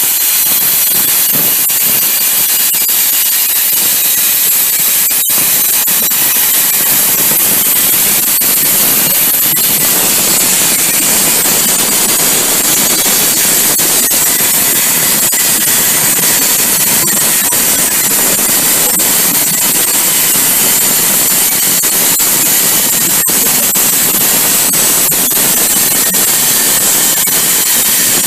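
CNC plasma cutter's plasma arc cutting sheet metal: a loud, steady hiss with a momentary break about five seconds in.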